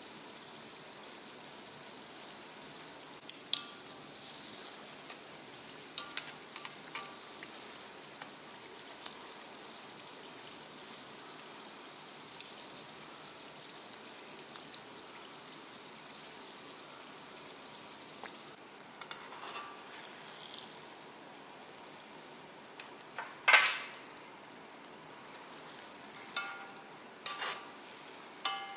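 Donuts deep-frying in hot oil: a steady, high sizzle that eases slightly about two-thirds of the way through. Metal tongs click sharply against the pan several times as the donuts are turned, with the loudest clack near the end and a cluster of clicks just after it.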